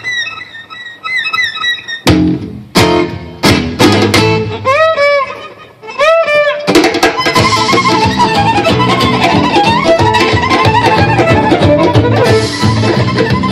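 Live gypsy-rock band with violin and guitar. The violin plays short, high sliding chirps like birds between sharp stops by the band, then two long swooping slides, and about seven seconds in the full band comes in with fast violin lines over the guitar.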